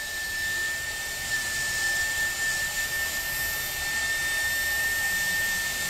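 Slow-speed dental handpiece with a round bur running with a steady high whine and hiss. It is grinding a groove into a stone dental cast along the posterior limit of the denture.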